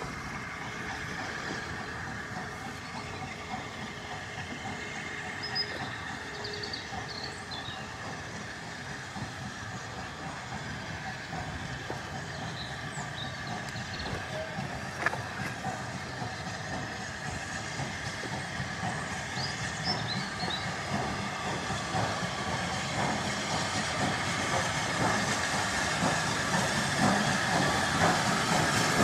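Steam locomotive hauling a train of coaches, approaching and growing steadily louder, with a hiss of steam.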